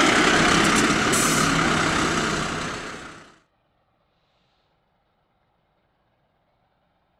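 Dennis Sabre fire engine's diesel engine running as it pulls away, with a short high hiss about a second in. The sound fades out about three seconds in, leaving near silence.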